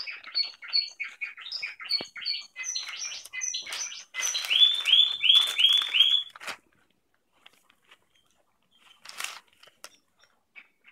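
Young Spanish Discontinuo song canaries singing: a quick run of varied chirps and trills, then five loud repeated swooping notes, breaking off about six and a half seconds in. One short burst of sound about nine seconds in.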